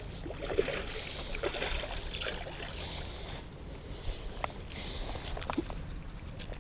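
Steady wind rumble on the microphone, with a few short splashes and rustles in the first half as a hooked largemouth bass thrashes at the water's edge and is lifted out by the line.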